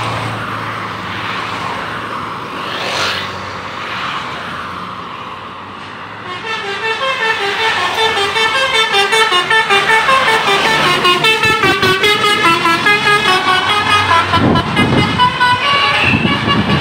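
Road traffic noise with a vehicle passing. About six seconds in, a tour bus's 'telolet' multi-tone horn starts up, playing a fast stepping tune of several tones sounding together.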